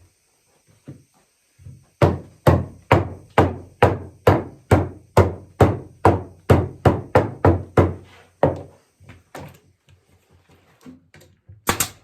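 A steady run of about fifteen blows, about two a second, driving the sourwood rungs into the rocking chair's posts. Faint knocks follow, then two sharp strikes near the end.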